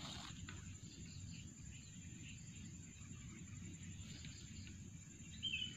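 Faint open-field ambience: a low wind-like rumble under a steady high insect drone, with a short bird chirp about five and a half seconds in.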